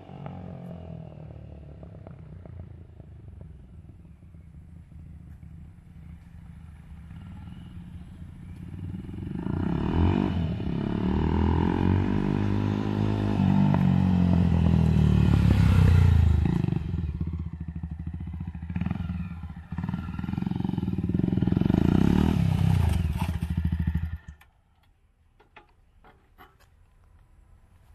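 Jawa 42 2.1 motorcycle's single-cylinder engine through a loud modified aftermarket exhaust, riding along and revving. It is moderate at first, then grows loud about a third of the way in as the bike comes near, its pitch rising and falling with the revs. The sound cuts off abruptly near the end.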